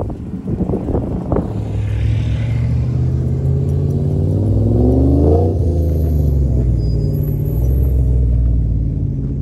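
Engine of a rusty vintage-truck-bodied rock crawler running with a low rumble as it rolls slowly forward, revving up and dropping back about five seconds in.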